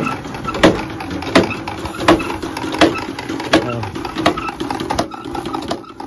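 Feed-bin auger running empty, a steady hum with a sharp knock about every three quarters of a second. The sound is the sign that no feed is dropping from the bin into the auger.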